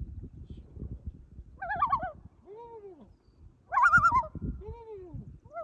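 Common loon giving its tremolo call: two quavering bouts about two seconds apart, each followed by a lower note that rises and falls, over a low rumbling noise.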